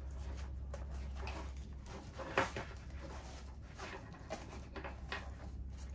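Faint rustle and scrape of a fabric tactical pouch being handled as its zipper is worked, just greased with petroleum jelly to free it from running too tightly. There is one slightly sharper scrape about two and a half seconds in, over a low steady hum.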